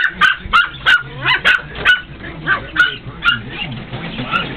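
Caged puppy barking in short, high-pitched yips, about three a second at first, then more spaced out.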